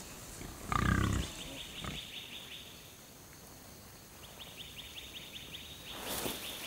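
A wild animal gives one loud, low grunt about a second in, over a fast, evenly repeating high chirping in the background.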